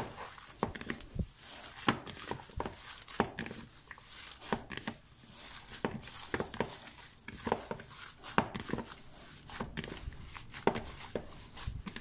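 Hands kneading raw minced meat (kefta) with spices in a bowl: irregular squishes and small knocks, a few each second.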